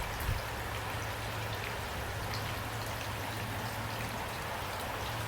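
Steady rain falling, an even patter of drops with a low hum beneath it.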